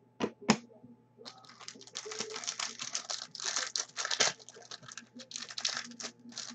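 Two sharp taps, then the rapid papery clicking and crinkling of football trading cards being slid through one by one by hand just after a pack is opened.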